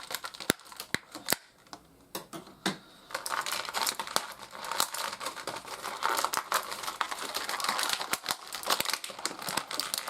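Plastic action-figure packaging crinkling, with many sharp clicks, as a figure is pulled out of its plastic tray; the handling gets busier from about three seconds in.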